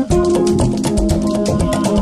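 Background music: an instrumental stretch of a song with guitar and percussion, between sung lines.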